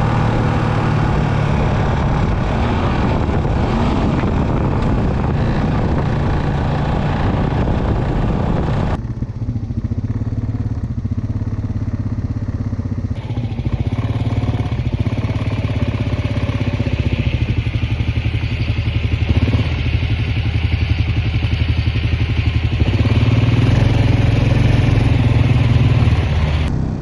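Engine of an off-road vehicle driving through snow, running steadily, with the sound changing abruptly twice as if cut, and growing louder for a few seconds near the end as it revs.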